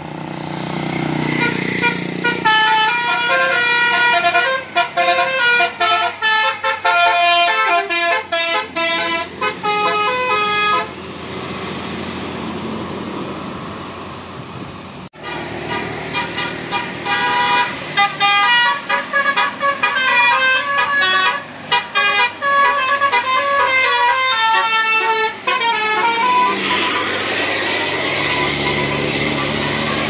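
Indonesian tour bus 'telolet' multi-tone musical horn playing a quick tune of changing notes, several tones sounding together, in two long runs. Bus engine and road noise fill the gaps.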